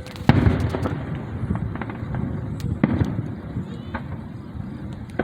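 Aerial fireworks bursting: a loud boom with a rolling rumble about a third of a second in, further booms about halfway through and near the end, and scattered crackling between.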